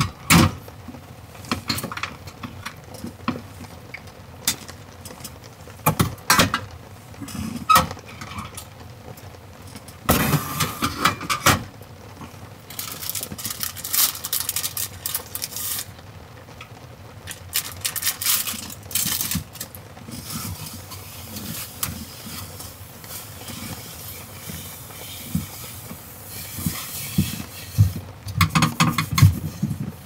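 Close-up handling sounds at a wooden table: scattered knocks and clicks of small things being picked up and set down, and stretches of rustling and rubbing as a wet wipe and its plastic packet are handled and the tabletop is wiped. Faint steady rain runs underneath.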